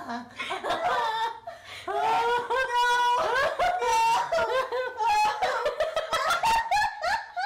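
Two women laughing uncontrollably: loud, high-pitched laughter in squeals that slide up and down in pitch, stopping just before the end.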